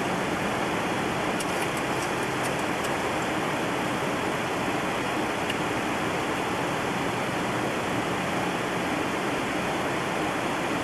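Steady rushing noise on the flight deck of a Boeing 727 in flight, an even roar with no change in level.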